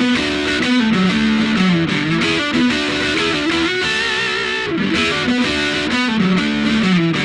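Electric guitar played through a BOSS DS-1 Distortion pedal: a distorted single-note riff with sliding notes, the same phrase played twice.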